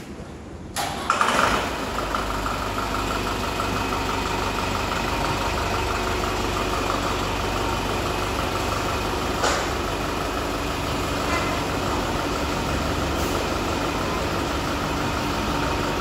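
A Tata 407 bus engine starting about a second in, then idling steadily. A short sharp sound stands out about nine and a half seconds in.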